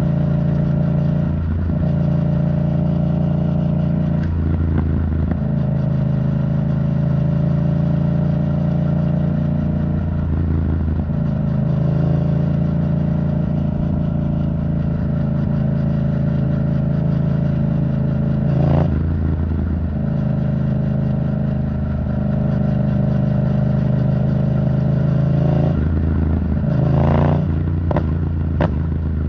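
Yamaha MT-07's parallel-twin engine through an Arrow Thunder titanium exhaust, riding steadily under throttle. The engine note shifts at breaks every few seconds, like gear changes, with a cluster of quick throttle changes near the end.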